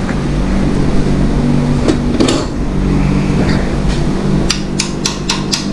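Small hammer tapping on the stuck intake valve of a flathead Briggs & Stratton 5 hp engine to free it: a couple of single taps, then from about two-thirds through a quick, even run of light taps, about four a second. A steady low hum runs underneath.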